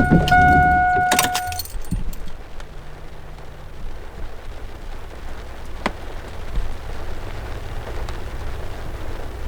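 A steady electronic warning tone, broken once briefly, with keys jangling and a couple of clicks, cuts off about a second and a half in. A low rumble and faint rain noise follow.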